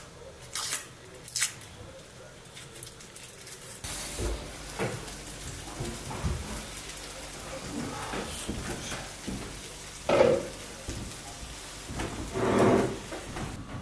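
Knife clicking and scraping as a red onion is peeled on a wooden cutting board. From about four seconds in, food sizzles in a frying pan on a gas hob as it is stirred, with two louder knocks near the end.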